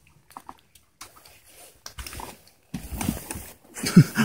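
Rustling and scraping handling noise from a camera and jacket being pushed through a narrow doorway, growing louder in the second half, with a few light clicks first. A loud short low-pitched sound that falls in pitch comes near the end.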